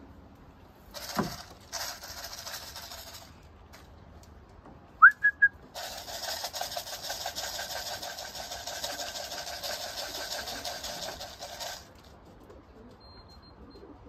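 A person's short whistle, a quick rising note and two short high notes, of the kind a pigeon fancier uses to call a racing pigeon down into the loft. Around it are stretches of steady high hissing noise, one brief and one lasting about six seconds.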